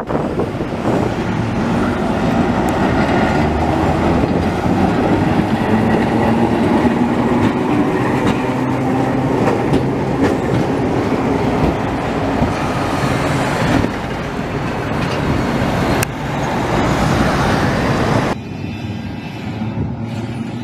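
Vintage tram passing close on street track: a loud rumble of wheels on rails with a low steady hum and a few sharp clicks over the rail joints. About three seconds before the end it drops abruptly to a quieter, more distant tram sound.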